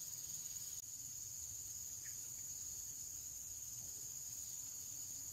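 Insects chirring steadily at a constant high pitch, with no break.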